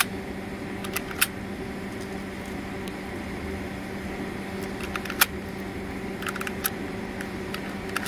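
7.62×39 cartridges being pressed one at a time into an AK rifle magazine: short metallic clicks at uneven intervals as each round snaps in under the feed lips, a few in quick succession. A steady low hum runs underneath.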